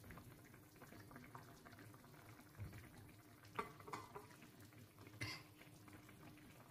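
Quiet simmering of fish broth in a pan, with a few soft clicks of a metal spoon against the pan and fish as broth is spooned over, about the middle.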